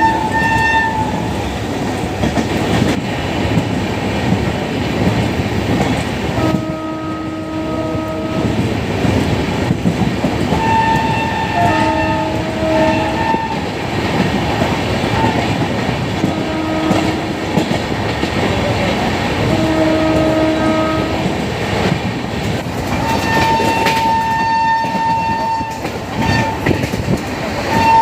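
Electric locomotive horns, a shrill high tone and a lower tone, blowing in a series of blasts, with a long shrill blast near the end. Under them the moving train makes a steady rumble and wheel clatter.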